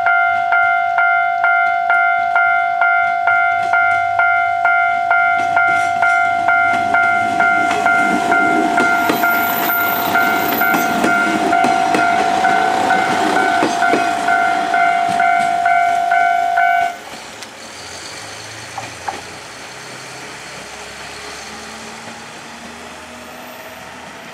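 Japanese level-crossing warning bell ringing about twice a second while a two-car Kanto Railway 5000 series diesel railcar passes close by, its wheels clicking over the rail joints. The bell cuts off suddenly about two-thirds of the way through, leaving the quieter running of the departing railcar.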